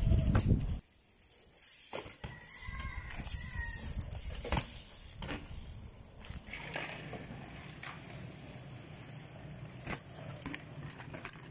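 BMX bikes being ridden on concrete: tyres rolling and scattered sharp knocks and clicks from the bikes landing and hitting the ground. A loud rushing noise cuts off about a second in.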